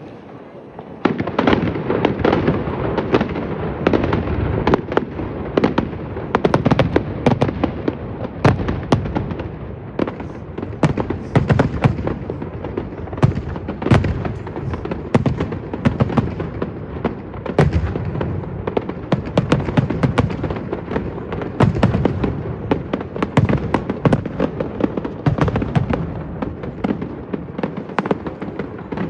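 Fireworks display: a rapid, unbroken barrage of bangs and crackles that starts abruptly about a second in.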